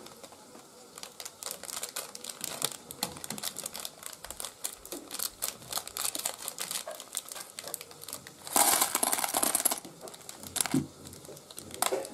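Plastic parts bag crinkling and rustling as it is cut open with scissors, with many small clicks of plastic bricks. About two-thirds of the way through, the loose plastic bricks are poured from the bag and clatter into a plastic tub for about a second.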